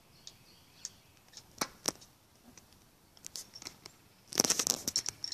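Handling noise from a scoped bolt-action rifle on a bipod being readied for a shot: a few isolated sharp clicks, then a quick rattling run of clicks and rustle about four seconds in.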